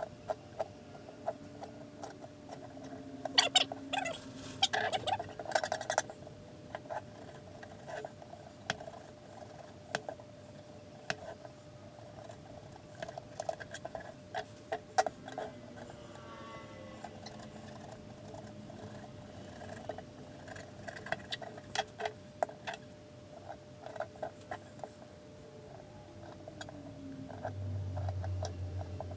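Scattered clicks and short scraping sounds of a knife working on a sea robin as it is filleted, over a steady faint hum.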